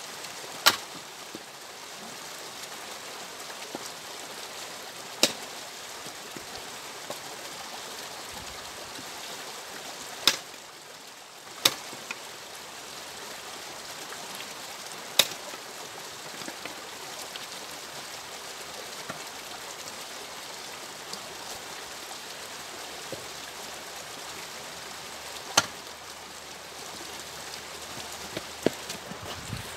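Axe strikes splitting firewood logs: sharp single cracks every few seconds, with a longer gap in the middle, over a steady rushing hiss.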